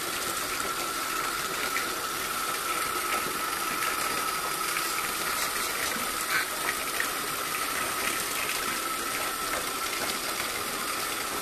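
Bathtub tap running, a steady rushing hiss with a thin, steady high whine in the plumbing.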